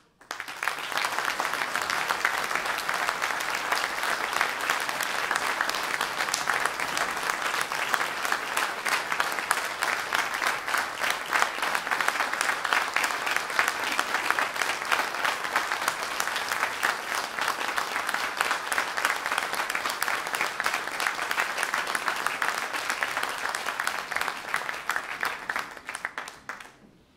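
Audience applauding: dense clapping breaks out suddenly, holds steady, and tapers off near the end.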